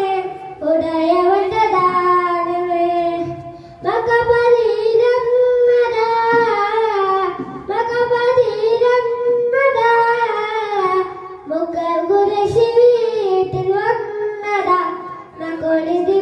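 A boy singing an Islamic devotional song solo into a microphone, in long, ornamented, wavering phrases of about four seconds each, with short breaths between them.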